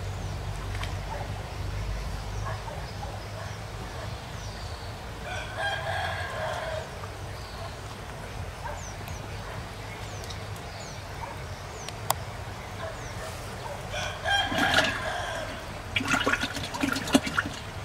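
A rooster crowing twice: one long call about five seconds in and another near the end. Small birds chirp now and then over a steady low rumble, and there is a short burst of sharp clicking in the last two seconds.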